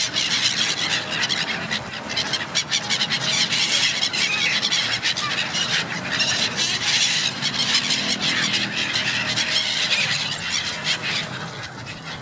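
A flock of birds calling all at once: a dense, loud, continuous chatter of many rapid high-pitched calls, easing off slightly near the end.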